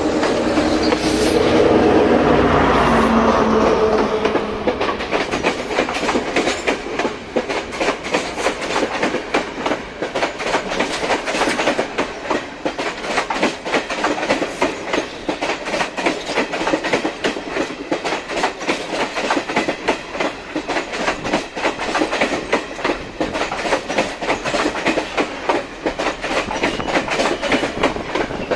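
Class S10 diesel multiple unit passing close alongside. Its power car's engine is loudest in the first four seconds, then its carriage wheels keep up a rapid clickety-clack over the rail joints.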